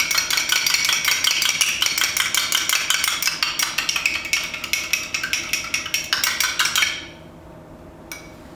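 A metal spoon beating an egg in a small pot: rapid, even clicks of the spoon against the pot's sides, stopping about seven seconds in once the egg is beaten.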